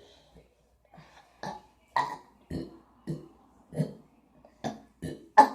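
A rapid run of about nine short burps, roughly two a second, the loudest near the end.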